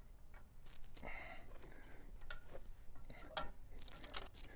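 Scattered metal clicks and a brief scrape from a hand tool working the jam nut on a tractor's adjustable three-point top link, with the sharpest click near the end.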